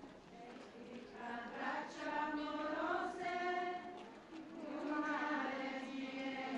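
Crowd of procession walkers singing a slow devotional chant together in unison, with long held notes. The singing swells about a second in, dips briefly near the middle and picks up again.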